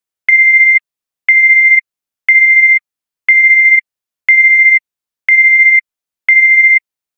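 Electronic beeps: one high, steady tone about half a second long, repeating once a second seven times and then stopping. It is the sound effect of a loading-screen intro with a filling progress bar.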